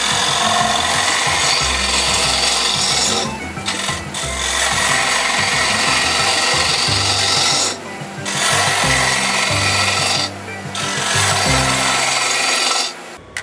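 A woodturning tool cutting wood on a spinning lathe, a steady scraping hiss that breaks off briefly three times as the cut pauses, with a low hum underneath.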